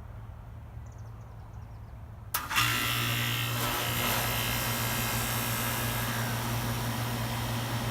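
A low steady hum, then a sharp click a little over two seconds in as the 2003 Carrier 3.5-ton central air conditioner's outdoor unit kicks on: the compressor and condenser fan start and run with a loud steady hum and rushing noise. On this first startup of the season the compressor sounds a little rough.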